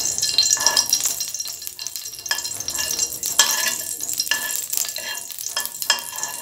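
Ghee melting in hot oil in a nonstick pan, sizzling, with a spatula stirring and scraping across the pan bottom in repeated strokes.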